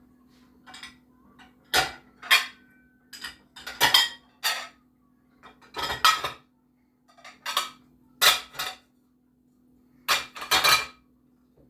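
Dishes and silverware clinking and knocking as they are handled and loaded into a small dishwasher, in irregular separate clinks, one ringing briefly about three seconds in. A faint steady hum runs underneath.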